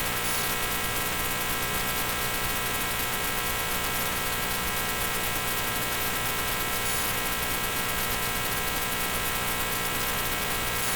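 Steady electrical buzzing hum with hiss, unchanging in pitch and level.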